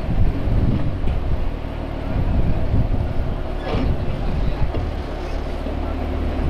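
Off-road 4x4 trial buggy's engine running at low revs, its throttle rising and falling as it crawls over a rock step, a deep steady rumble.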